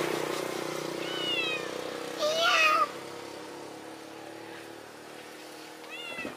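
A cat meowing three times: a short falling meow about a second in, a louder wavering meow just after two seconds, and a short falling meow near the end. A steady engine hum fades in the background.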